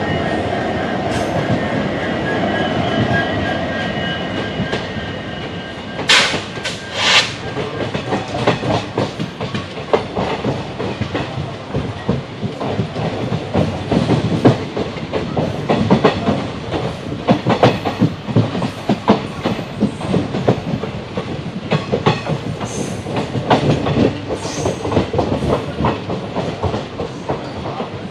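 Twin EMD WDG4 diesel locomotives give their "sneeze": two sharp hisses about six and seven seconds in, over a steady hum with high whining tones. Then a train rolls past, its wheels clattering rhythmically over the rail joints.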